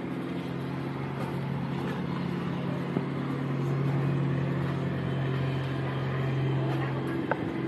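An engine running at a steady speed, giving an even, unchanging hum.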